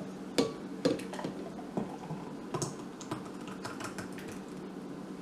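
Thick smoothie being poured from a blender jar into a glass: a scattering of light, irregular taps and clicks as the jar and glass touch and the smoothie drops in.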